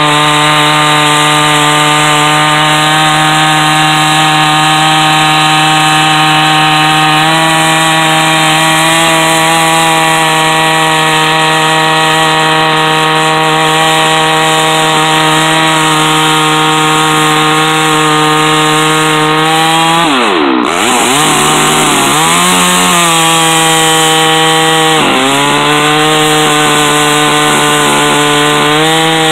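Chainsaw mounted in a chainsaw mill, running at high speed as it rips lengthwise through a poplar log, cutting a 1.5-inch board. The engine note holds steady for most of the cut, then dips sharply and recovers three times, and starts to fall at the very end.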